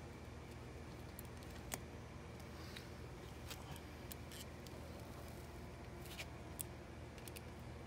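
Scattered light metallic clicks from a folding hex key set and an Allen key working the bolts of a Hemi cam phaser, about half a dozen, the sharpest near two seconds in, over a steady low hum.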